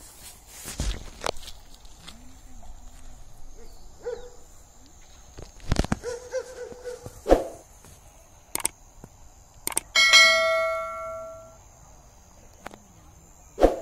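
A single bell ding about ten seconds in, just after a click, ringing out with many overtones and fading over about a second and a half. A steady high insect drone runs underneath, with a few soft knocks earlier on.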